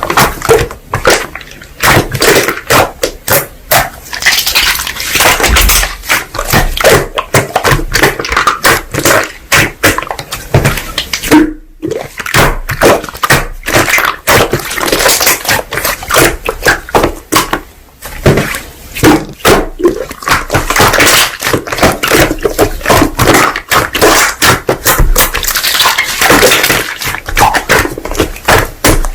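Slime being squished and pressed by hand, giving a dense, irregular stream of clicks, pops and crackles.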